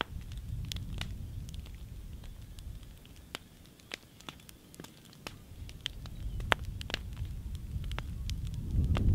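A burnt-down wooden frame smouldering on its embers, with irregular sharp crackles and pops, one louder pop a little past the middle. Under it a low rumble fades in the middle and swells again near the end.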